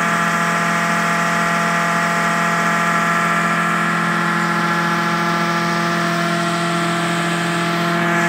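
A machine running with a steady, unchanging drone.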